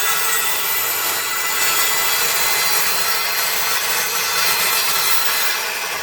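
Guild 1400 W 185 mm circular saw running at full speed and cutting through a decking board: a steady motor whine under the loud rasp of the blade in the wood. It eases slightly near the end.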